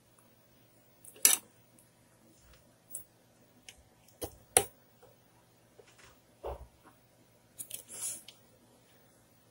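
Multimeter test probes clicking and scraping against components and solder joints on a TV power-supply board during a diode check, with the lead wires being handled. It is a handful of sharp clicks, loudest about a second in and again after four and a half seconds, a softer knock about six and a half seconds in, and a short cluster of clicks near the end.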